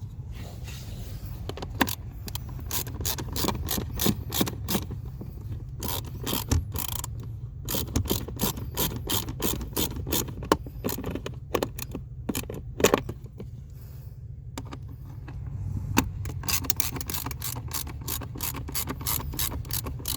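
Ratchet wrench clicking in quick runs as it tightens the mounting screws of a newly fitted blower motor, over a steady low hum.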